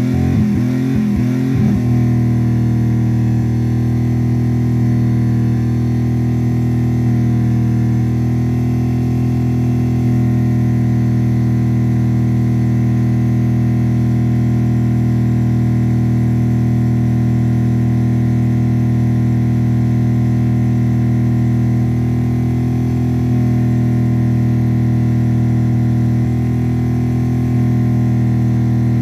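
Dodge 318 V8 engine running with no coolant in it. It revs unevenly for the first two seconds or so, then holds a steady speed with a constant drone, and the tone shifts slightly twice near the end.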